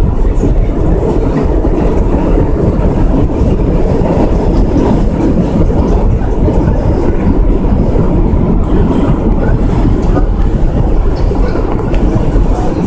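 New York City subway train running between stations, heard from inside the car: a loud, steady noise of wheels on rails.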